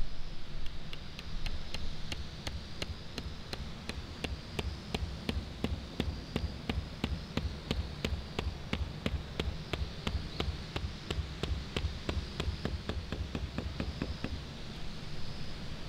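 Small hammer tapping a tent stake into the ground in quick, light, evenly spaced strokes, about four a second, stopping near the end.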